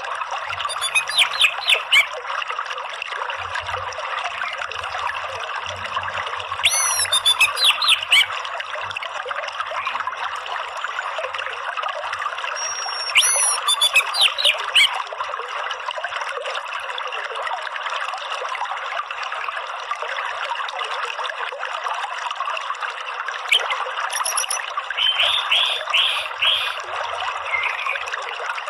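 Steady trickling stream water with an orange-headed thrush calling over it in about four short bouts of quick, high sweeping notes, the ngeriwik chatter used to coax caged thrushes into song.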